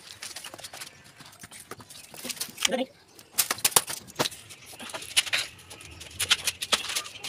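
Scattered, irregular sharp clicks and knocks from handling plastic water pipes and fittings during plumbing work, with a brief voice sound about two and a half seconds in.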